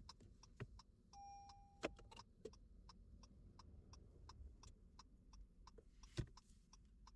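Near-silent car cabin with the car's indicator flasher ticking faintly and evenly, about three ticks a second, while the car sits stalled, out of gas. A steady electronic beep lasting about a second sounds about a second in, and there are a couple of slightly louder knocks.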